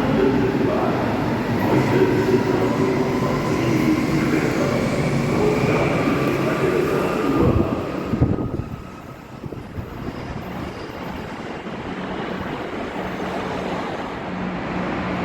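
Train running through a station platform, a loud rumble with steady whining tones that drops away sharply about eight seconds in, leaving a steady low hum.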